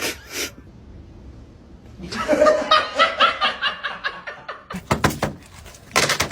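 Human laughter lasting a couple of seconds in the middle, with a few sharp knocks or clicks at the start and again near the end.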